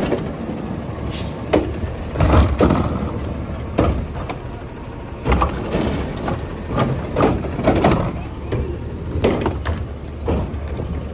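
Garbage truck's Curotto-Can automated arm grabbing a wheeled trash cart, lifting it and tipping it into the carry can, with a string of sharp clanks and bangs of plastic and metal over the truck's steady engine hum.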